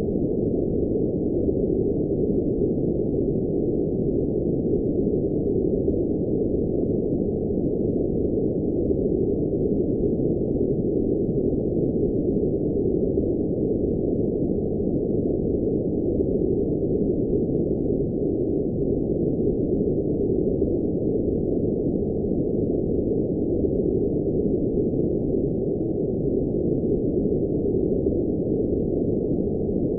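Steady, unbroken synthetic noise played as a background-noise track: a low, muffled hiss with all its sound below about 1 kHz and nothing higher.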